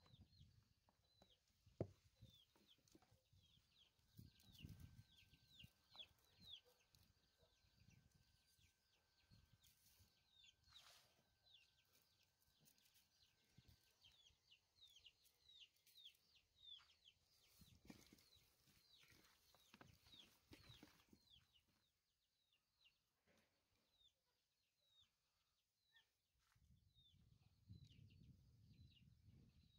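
Faint bird chirping: many short, high, falling chirps, a few a second, with a few soft low thumps of handling.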